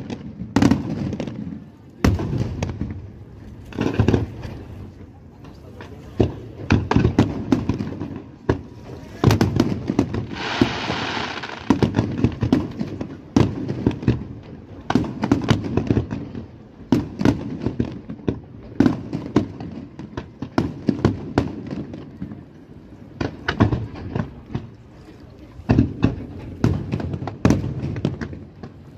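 Colangelo Fireworks aerial shells bursting in quick succession: a continuous barrage of sharp bangs and deep booms. About ten seconds in, a hissing stretch lasts a second or so.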